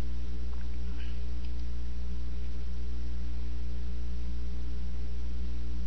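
Steady low electrical hum with several faint steady tones above it, unchanging throughout: mains hum picked up by the recording.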